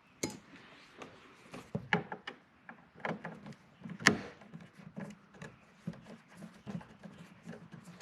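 Irregular clicks and light knocks of a Torx driver and hands working the T25 Torx screw out of a Volvo 740 plastic door panel. The loudest knock comes about four seconds in.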